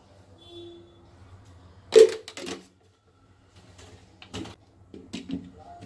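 Kitchen containers being handled and set down on the counter: a few sharp knocks and clatters, the loudest about two seconds in, over a low steady hum.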